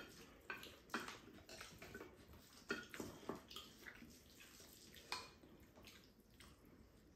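Faint eating sounds: wet chewing and lip-smacking, with a scatter of short, light clicks of spoons and chopsticks against bowls.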